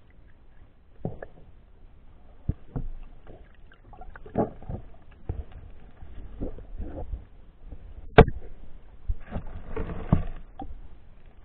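Irregular underwater knocks, clicks and sloshing picked up by a submerged camera in shallow water, over a low rumble. A sharp click about eight seconds in is the loudest, followed by a short stretch of denser scraping and rustling.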